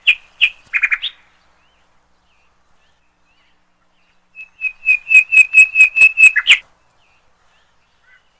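A small bird chirping in high, clear whistled notes: a few chirps at the start, then a quick run of notes about six a second from about four seconds in, ending on a louder note.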